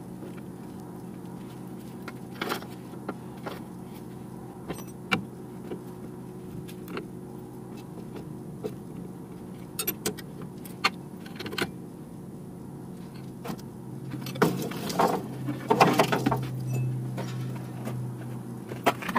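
Scattered metal clinks and knocks of hand tools working on the rotted rear-axle hardware of a Chevy Tracker, over a steady low hum. A louder run of clatter comes about fifteen seconds in.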